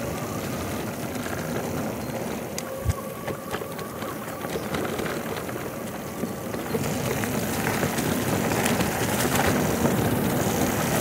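Electric mountain bike rolling down a dirt and gravel trail: a steady rumble of tyres and wind, with scattered rattling clicks from the bike, getting louder about seven seconds in as it picks up speed.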